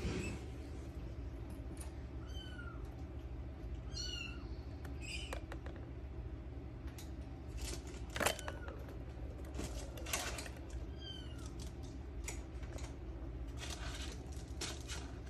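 Minuet kitten mewing: several short, high-pitched mews spaced out over the stretch. A sharp knock, the loudest sound, comes about eight seconds in, with a lighter one a couple of seconds later, over a steady low hum.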